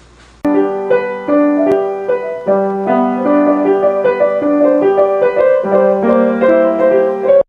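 Piano playing a melody over held bass notes. It starts suddenly about half a second in and cuts off abruptly near the end.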